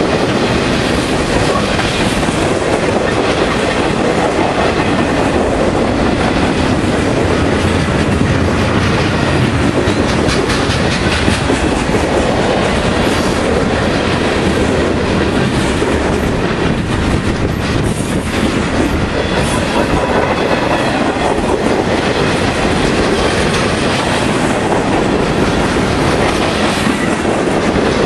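Freight cars of a mixed manifest train rolling past: a steady, loud rumble of steel wheels on rail with a continuous clickety-clack of wheels over the track.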